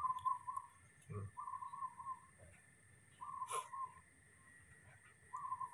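Baby macaque giving four short, wavering, high-pitched calls while being spoon-fed porridge, with a sharp click partway through.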